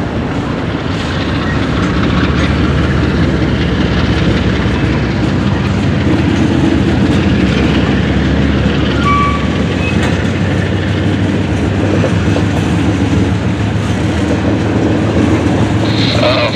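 Freight cars of a long mixed train rolling past close by: a steady rumble of steel wheels on the rails.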